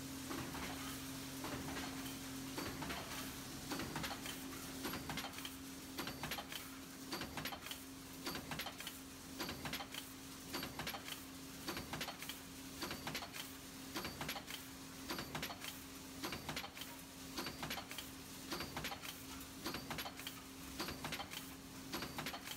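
Aluminium foil container press line running: the press and foil feed make a rhythmic clatter of repeated knocks and clicks over a steady hum.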